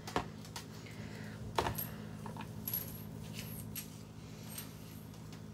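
Scattered taps and clinks of a utensil against cookware, a few with a short metallic ring, over a steady low hum.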